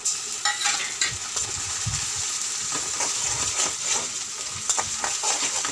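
Onions and ginger-garlic paste sizzling as they fry in hot oil in a pan, with a spoon stirring and scraping against the pan in scattered clicks.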